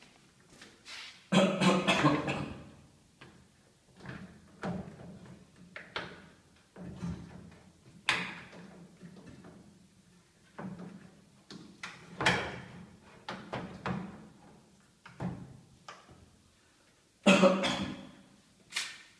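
Plastic panels and frame parts of a Sanyo top-loading washing machine being handled and knocked about during disassembly: irregular clunks and scrapes, loudest about a second in and again near the end.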